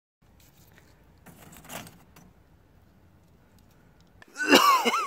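Faint handling noise with a short scratchy burst about a second and a half in, then a man's voice, loud, near the end.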